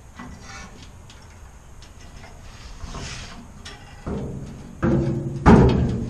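Metal clanks from a Troy-Bilt wood chipper and its steel tow bar being handled: three knocks with a short ringing tail, about a second apart, each louder than the last, the loudest near the end.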